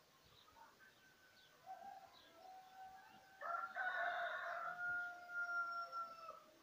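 A rooster crowing: one long, drawn-out crow, loudest in the middle, ending shortly before the close.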